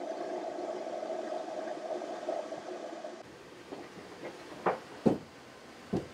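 Steady hum of the yacht's air conditioning, with a faint tone in it, which drops away about three seconds in. After that come a few light knocks: footsteps on the wooden cabin floor.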